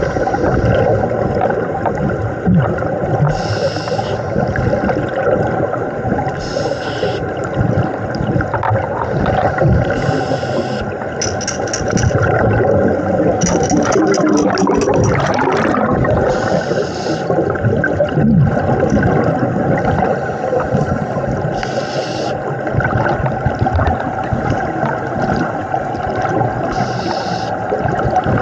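Scuba diver breathing through a regulator underwater: a short hiss on each inhalation, recurring every few seconds, over the continuous rumble and bubbling of exhaled air.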